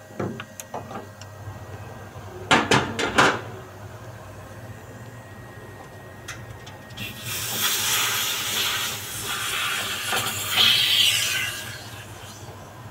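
A few sharp metallic clicks at a brass service valve, then refrigerant gas hissing out of the air conditioner's service port for about four seconds before it stops.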